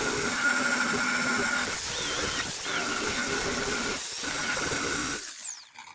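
Power tool with a wire wheel running against a truck body panel, a steady grinding noise with a brief dip about four seconds in. Near the end the tool is switched off and winds down with a falling whine.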